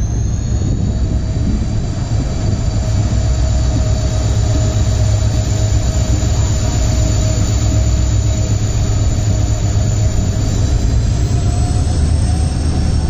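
Passenger train hauled by a WDP4D diesel-electric locomotive running at speed, heard from an open coach doorway: a loud, steady low roar from the locomotive with rushing wind and wheel-on-rail noise. A thin, steady high whine runs over it and rises slightly about eleven seconds in.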